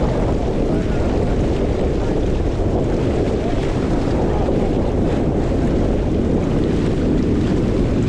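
Strong wind buffeting the camera's microphone over water rushing past the hull of a Catalina Capri 22 sailboat heeled under sail. A steady, heavy rush, mostly low-pitched, with no let-up.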